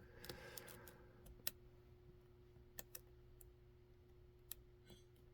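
Faint, scattered clicks of a lock pick working the pins of a Dom 333RN lock: about five sharp ticks at uneven intervals, the clearest about a second and a half in.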